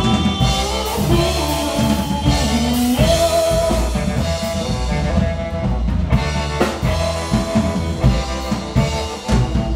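Live rock band playing: upright bass, drum kit and electric guitar, with a front man on a hand-held microphone, loud and steady throughout.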